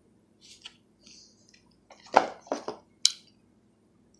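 Trading cards in plastic sleeves or holders being handled and swapped: a few short plastic clicks and rustles, the loudest about two seconds in.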